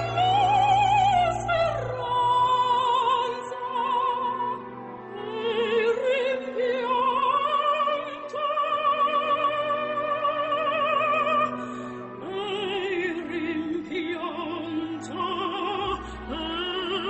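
Operatic singing with classical accompaniment: a voice holding long notes with wide vibrato, gliding between pitches.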